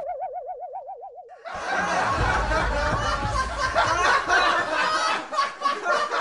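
A wavering, warbling comic tone for about the first second and a half, then a sudden burst of many people laughing that carries on to the end, a laugh track under the credits.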